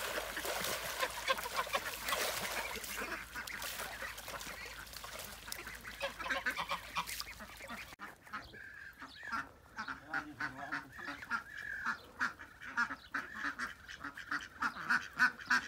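Ducks splashing and flapping in a small pool of water, then, after a sudden cut about halfway through, a flock of domestic ducks quacking over and over.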